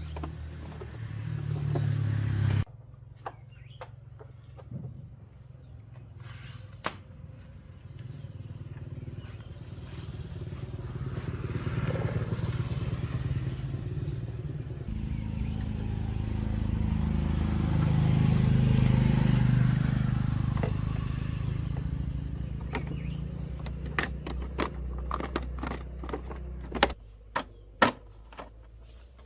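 An engine running steadily with a low hum, in edited segments that cut in abruptly; it swells and fades, loudest about two-thirds of the way through, and sharp clicks and knocks come near the end.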